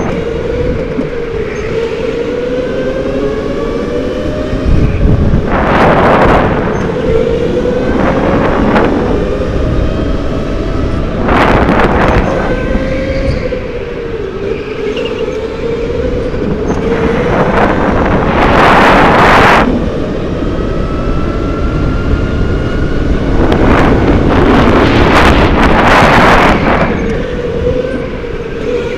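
Go-kart's motor running at speed, its pitch rising and falling as it speeds up and slows, with several loud rushes of noise lasting one to two seconds each.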